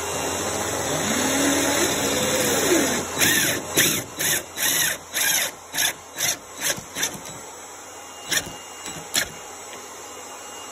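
Power drill driving a trim head screw into a wooden faux beam. The motor runs with a pitch that rises and falls, then comes about ten short trigger bursts in quick succession, and two more a little later, as the screw is driven home.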